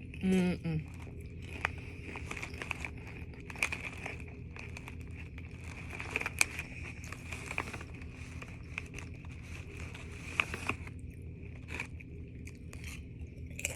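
Mouth chewing and crunching crisp potato chips, with irregular sharp crunches spread through, after a short vocal sound about half a second in.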